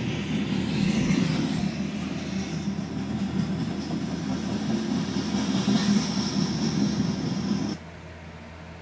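Coal train's hopper cars rolling past, a steady rumble of wheels on rail, played through a computer's speaker. The sound cuts off abruptly near the end, leaving a quieter steady hum.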